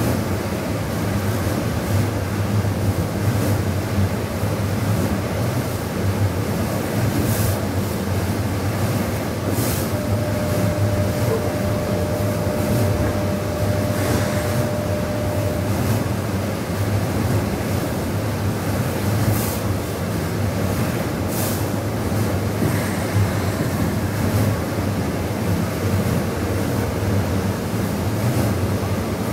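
Keikyu electric train rolling slowly through an automatic train washer, with a steady low rumble from the train and the washer's spinning side brushes. Short hisses come now and then, and a steady whine holds for about six seconds in the middle.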